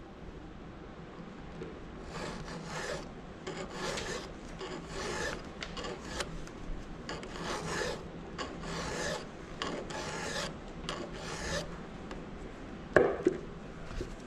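Flat file scraping across a chainsaw cutter tooth in repeated strokes, about one and a half a second, grinding down an oversized cutter so its length matches the others. A sharp knock comes near the end.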